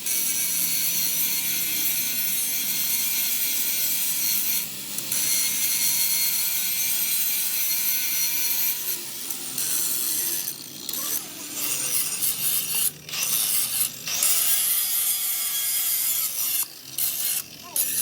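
An abrasive power tool working metal, a harsh rasping noise with a faint steady whine. It breaks off briefly several times in the second half, as the tool is lifted and set back on.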